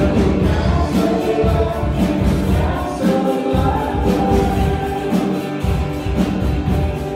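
Live worship music: a woman singing lead into a microphone over strummed acoustic guitar and drums keeping a steady beat.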